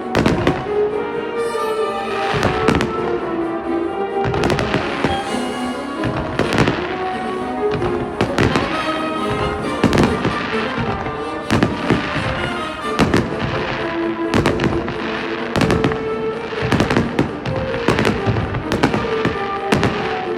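Aerial fireworks shells bursting again and again, sharp booms about one or two a second, over the show's accompanying music with sustained held notes.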